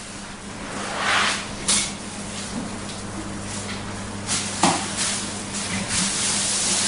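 Plastic film and foam packing wrap rustling and crinkling as it is handled and pulled off, in several louder bursts, over a steady low hum.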